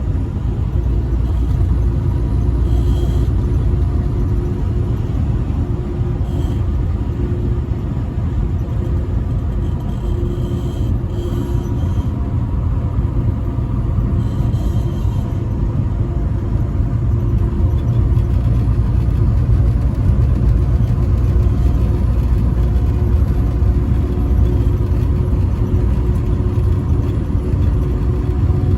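Semi-truck driving at highway speed: a steady low rumble of engine and road noise.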